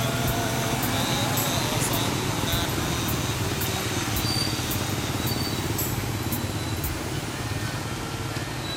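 A motor vehicle running steadily, with a continuous hiss of road noise over a low engine hum.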